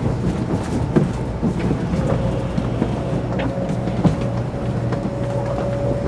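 Series 300 Shinkansen train heard from inside the passenger car while running: a steady low rumble with scattered light clicks and knocks, and a steady whine that comes in about two seconds in.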